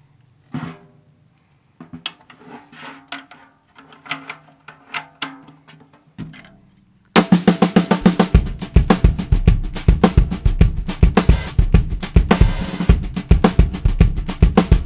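Sonor Signature 14x8 Lite Birch snare drum with an Evans HD Dry head at medium tuning, damped with a Snare Weight muffler: first a few light taps with short ringing, then from about seven seconds in a loud, fast drum-kit groove of snare and bass drum.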